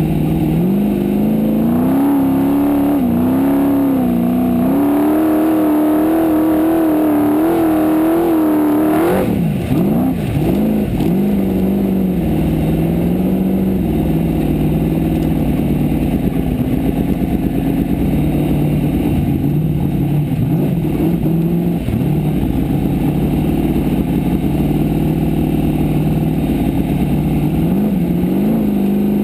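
A Formula Offroad car's engine, heard from inside the cockpit, running hard at high revs with the pitch rising and falling under the throttle. About nine seconds in the engine note breaks off abruptly and drops, then holds lower and steadier before climbing again near the end.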